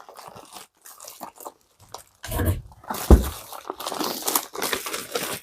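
Plastic packaging crinkling and tearing as items are handled, in irregular rustles, with a couple of dull thumps about two and three seconds in.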